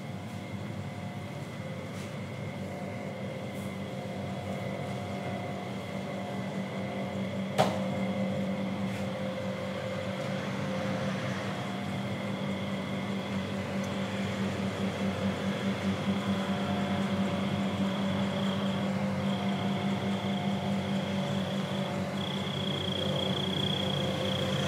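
Steady low mechanical hum with a thin, steady high whine above it that drops out briefly a few times, growing slowly louder; one sharp click about seven and a half seconds in.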